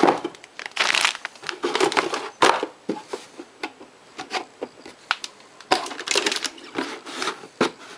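A cardboard motherboard box and its cardboard insert being handled: irregular scrapes, taps and rustles, with a sharp knock right at the start.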